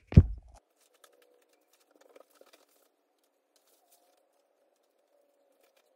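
A single loud thump right at the start, then a faint steady hum with a few light ticks and taps.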